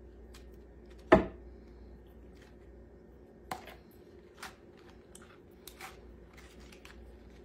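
A metal spoon knocking and scraping against a plastic mixing bowl and a glass baking dish as a thick, creamy chicken mixture is scooped and spread. There is one sharp clack about a second in, a second knock a couple of seconds later and a few softer clicks after, over a low steady hum.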